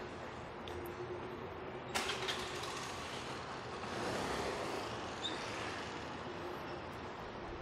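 Quiet city alley ambience: a steady low hum of distant traffic and machinery, with one sharp click about two seconds in and a brief swell of noise around four seconds.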